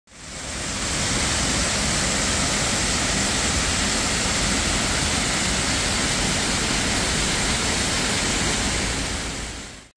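A steady, even rushing noise that fades in over the first second and fades out just before the end.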